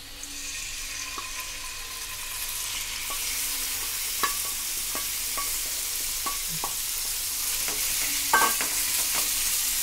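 Marinated boneless chicken pieces sizzling as they hit hot oil in a non-stick frying pan. The sizzle grows louder as more pieces go in. A few sharp clicks of the steel bowl and pan sound about four seconds in and again past eight seconds.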